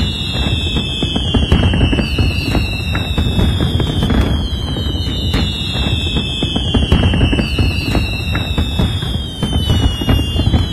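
Fireworks going off in quick succession, a dense run of bangs and crackling. High whistles falling in pitch cut through every couple of seconds.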